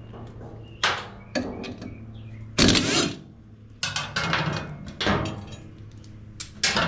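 Metal clanks and knocks as removed lawn mower blades and parts are handled on a workbench, one longer clattering stretch among several shorter knocks, over a steady low hum.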